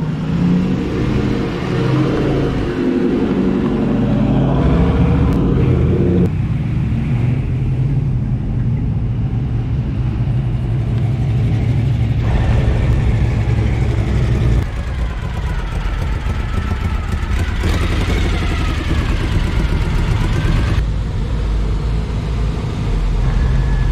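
Car engines running and driving past, in short clips cut together. A steady low engine rumble whose note changes abruptly at each cut, about six, twelve, fifteen and twenty-one seconds in.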